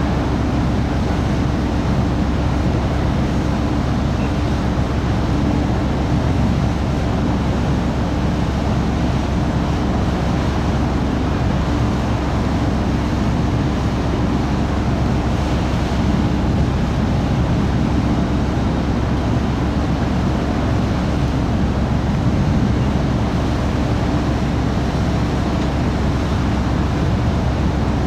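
Steady low rumble of the car ferry Calanthe Okushiri's engines and machinery heard from on board, with an even wash of wind and water noise over it.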